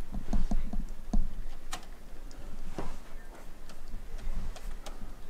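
Laptop keyboard keys tapping irregularly as someone types, a few quick taps at first, then sparser.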